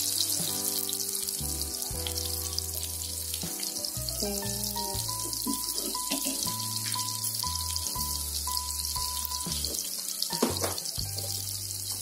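Sliced shallots, crushed garlic and bird's-eye chilies sizzling in hot oil in a wok, a steady hiss, over background music. There is one sharp knock near the end.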